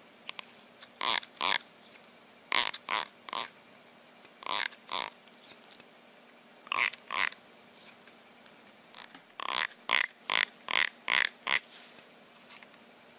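A thumb strumming the teeth of a plastic comb: short, sharp rasps in groups of two or three, then a quick run of six near the end.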